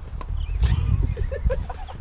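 Wind buffeting the camera microphone, an uneven low rumble, with a few short voice sounds in the second half.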